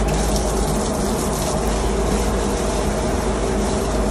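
Water jet from a hose lance spraying and splashing against the steel walls inside an oily water separator's first-stage housing, over a steady drone of ship engine-room machinery.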